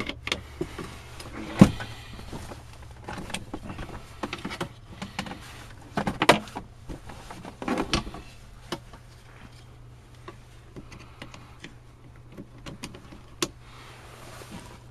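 Irregular clicks, knocks and clunks of hands working at a dead battery with a jumper pack, hooking it up; the loudest knock comes about two seconds in, with further bunches of clatter around six and eight seconds.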